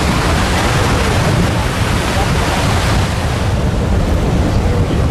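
Sea water rushing and churning alongside a moving ship, mixed with wind buffeting the microphone: a loud, steady rushing noise with no distinct tones.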